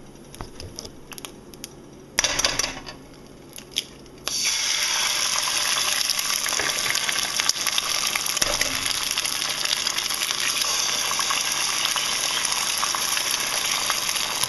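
A few light clicks of cookware and a short loud hiss about two seconds in, then from about four seconds eggs sizzling steadily as they fry in a hot oiled pan.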